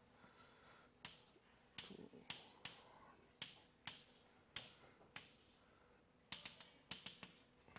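Chalk tapping and scratching on a blackboard as tick marks and numbers are written: a string of sharp, separate taps about every half second, with a quick cluster of them near the end.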